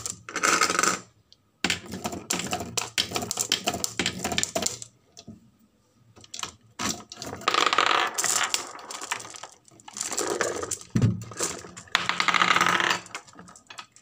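Glass marbles clattering against one another and the plastic cage of a toy truck. Rapid runs of clicks come first, then a short lull, then three louder bursts of rattling in the second half.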